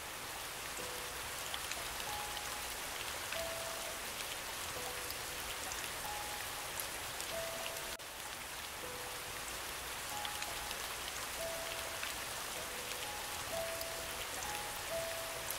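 Steady rain falling, with sparse, soft single piano notes sounding over it every second or so.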